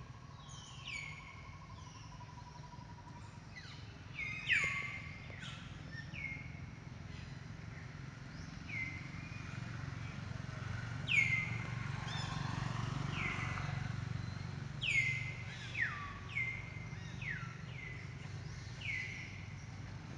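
A bird calling over and over: short, high whistled notes that each slide down in pitch, coming every second or so with some longer gaps, over a steady low background rumble.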